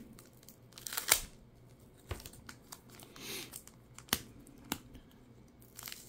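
Plastic card sleeve crinkling and green tape being peeled off it, in faint, scattered short rustles and clicks, the sharpest about a second in and again about four seconds in.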